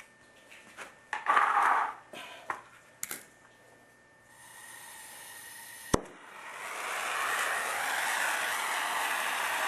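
A few knocks and a short burst of handling noise come in the first two seconds. Then gas starts to hiss from a hand-held soldering torch, a sharp click about six seconds in lights it, and the flame burns with a steady, loud hiss that builds over about a second.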